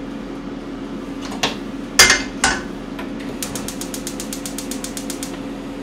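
Kitchen sounds at the stove over the steady hum of a running appliance: three sharp knocks about one and a half to two and a half seconds in, the middle one loudest, then a rapid, even run of clicks, about ten a second, for about two seconds.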